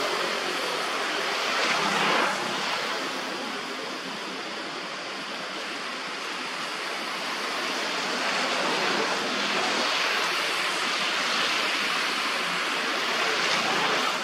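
Steady rushing background noise with no distinct events, a little louder about two seconds in and again in the second half.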